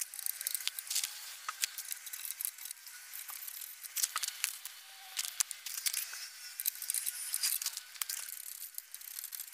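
Many light, irregular metallic clicks and rattles as a metal camera bracket and its screws are handled and fitted onto a van's rear bike rack. The sound is thin, with no low end.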